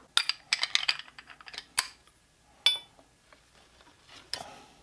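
Metal hand tools and hardware clinking against an engine's valley cover: a quick run of light clicks and rattles, then a few separate sharp clinks that ring briefly.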